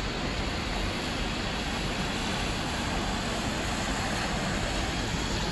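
Steady city street traffic noise: cars on a wet road, with an even rush and rumble.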